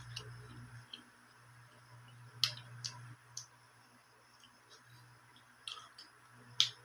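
Eating sounds of crisp raw fruit or vegetable being chewed: a few sharp crunches and mouth clicks at uneven intervals, over a faint low steady hum.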